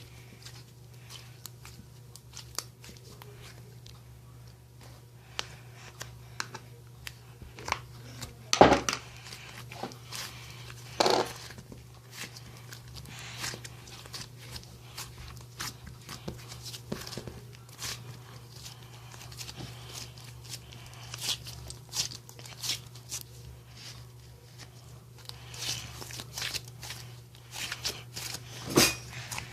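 Small handling noises: crinkling and rustling with many scattered light clicks, and a few louder sharp sounds about nine and eleven seconds in and near the end, over a steady low hum.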